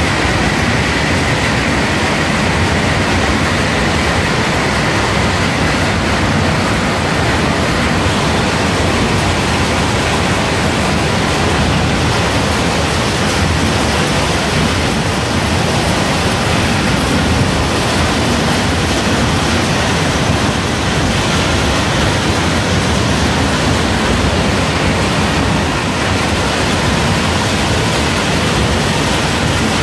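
Machinery of an almond cracking, sieving and shell-separating line running: a loud, steady, even mechanical noise with no distinct knocks or rhythm.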